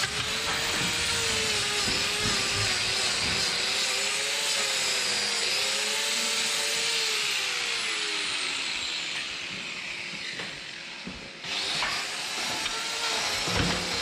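Electric angle grinder with a hoof-trimming disc cutting a cow's hoof: the motor's whine dips in pitch and recovers each time the disc bites into the horn. It winds down about ten seconds in, then starts up again abruptly a little later.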